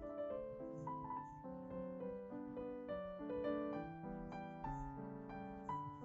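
Background instrumental music: a keyboard melody of quick, short notes.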